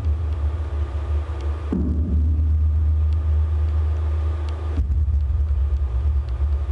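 Deep, steady rumbling drone of metal ceiling wires amplified through piezo contact microphones, with a brief low note about two seconds in and an abrupt shift in the drone near five seconds.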